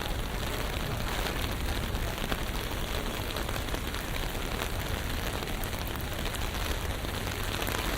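Steady rain falling and pattering on surfaces, a dense hiss of many fine drops over a continuous low rumble.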